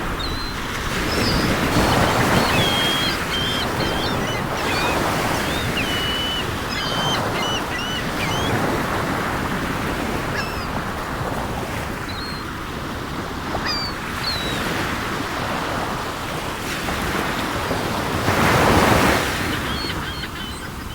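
Sea waves surging and washing in a continuous rush that swells and eases, strongest about two seconds in and again near the end. Seagulls call over it in many short, high cries, thickest through the first half and now and then later.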